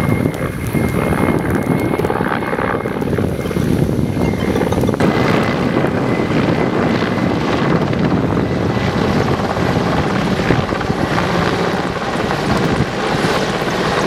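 Firefighting helicopter flying over a wildfire, its rotor beating in a loud, steady rhythm as it carries and drops a water bucket.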